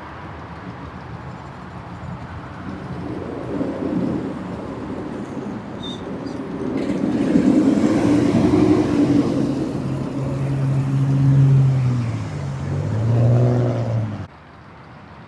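Rocky Mountain Construction roller coaster train on a test run, a rumble of wheels on the track that builds over several seconds and carries a low droning tone at its loudest. It cuts off suddenly near the end.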